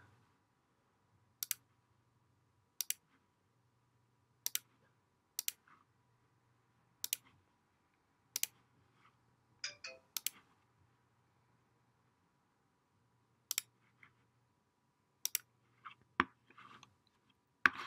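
About ten single, sharp computer mouse clicks, spaced one to two seconds apart, each placing the next point of a line being drawn in a CAD sketch.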